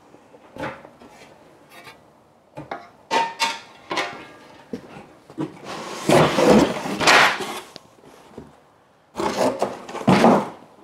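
Cardboard shipping box being handled: the inner cardboard insert is lifted and slid, scraping and rubbing against the box, with scattered light knocks and taps.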